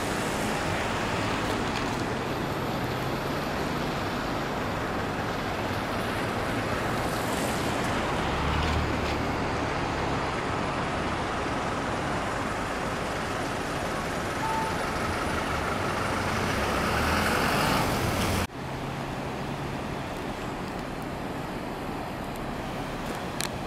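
Steady outdoor rumble of road traffic with a low engine hum, swelling about 16 to 18 seconds in, then cut off abruptly. A quieter steady rushing noise follows.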